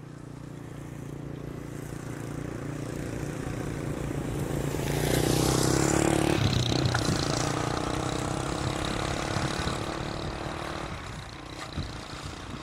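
A motor vehicle's engine running along a road. It grows louder to a peak about halfway through, with a drop in pitch as a vehicle passes close, then fades somewhat.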